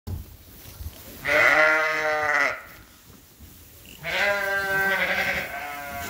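Sheep bleating: two long bleats, the second starting about a second and a half after the first ends.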